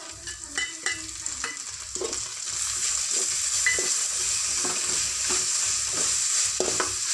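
Onions, green chillies and freshly added ginger-garlic paste sizzling in hot oil in a kadai, stirred and scraped around the pan with a spatula. The sizzle grows louder about two seconds in as the paste is stirred through.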